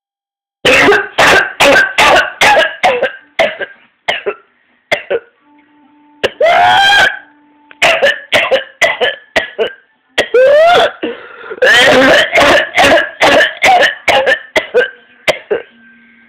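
A teenager's coughing fits: rapid runs of short, hard coughs, each run broken by a long, high-pitched whooping in-breath as she struggles to get air. A coughing fit ending in an inspiratory whoop is typical of whooping cough (pertussis).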